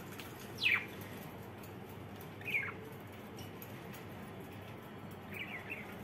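Budgerigar calling: two sharp chirps that sweep downward in pitch, about two seconds apart, the first the loudest, then a quick pair of short, softer chirps near the end.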